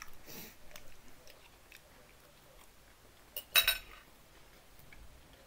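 Close-up chewing of food with small wet mouth clicks, and a short, sharp, loud clatter about three and a half seconds in.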